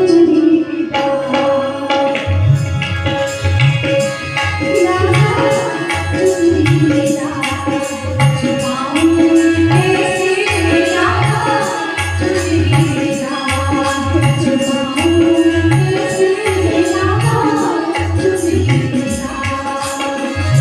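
Bhajan accompaniment: electronic keyboard playing a held, wavering melody over a steady hand-drum rhythm. The drum strokes come in about two seconds in.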